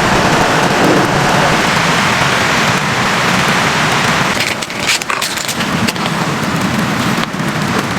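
Steady rushing noise of blizzard wind and driven snow, with a few sharp clicks and taps about halfway through.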